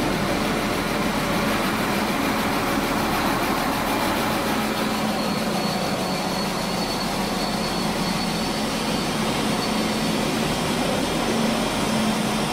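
KD SA134 diesel railcar rolling slowly along the platform, its diesel engine running with a steady low hum. A faint high whine comes in over the middle seconds.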